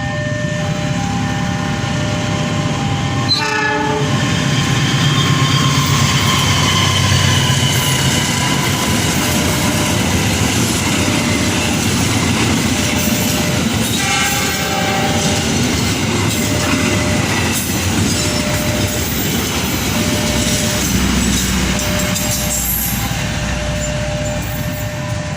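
Argo Semeru express train passing through at speed: a steady rumble and clatter of wheels on the rails. The horn sounds briefly about three seconds in and again for about a second around halfway through.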